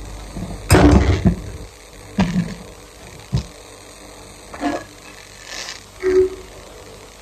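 Kitchen handling sounds: a handful of separate knocks and clinks, the loudest about a second in, some with a short ringing tone like a dish or utensil set down.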